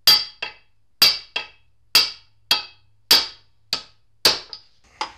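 Hammer blows on a metal driver, tapping a bearing out of an NP231 transfer case housing: about eleven sharp metallic knocks, roughly two a second, alternating harder and lighter strikes.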